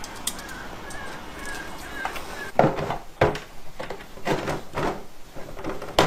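A knife scoring a Lexan polycarbonate sheet: several rough scraping strokes and knocks in the second half.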